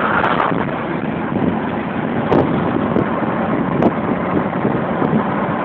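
Wind rushing over the microphone in a moving car, with steady road noise underneath.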